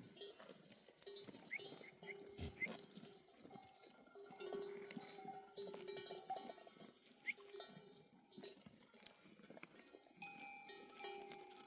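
Bells hung on a flock of sheep clanking and ringing faintly and irregularly as the animals move.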